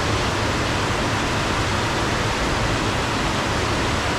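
Steady rush of fast-flowing, storm-swollen water.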